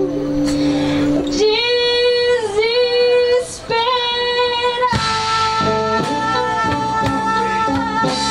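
A woman sings long held notes with vibrato, climbing to a high note sustained through the last few seconds, over a live band of electric bass, saxophone and drums.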